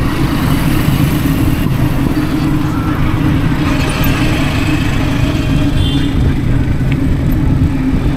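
Steady wind rush and rolling noise from riding a bicycle, picked up by a DJI Osmo Action 4 action camera's microphone as a deep, unbroken rumble.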